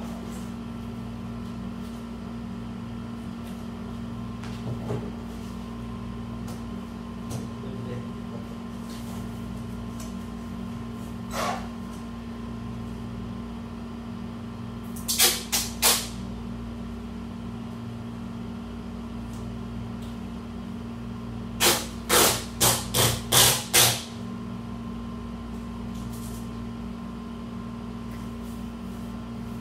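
Duct tape pulled off the roll in short rips while sealing a cardboard box: three rips close together about fifteen seconds in, then a run of six about twenty-two seconds in. A steady low hum sits underneath.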